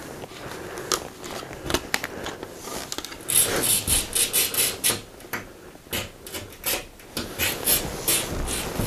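Wooden cupboard with a glass door being handled: a rapid, irregular run of sharp clicks, knocks and scraping, busiest in the middle of the stretch and again near the end.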